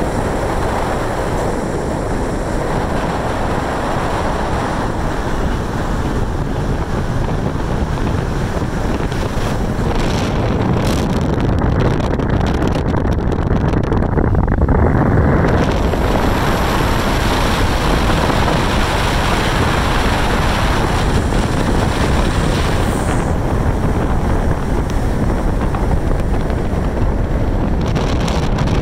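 Steady wind rushing on the microphone over the road and tyre noise of a car driving down a winding mountain grade, heard from inside the moving car.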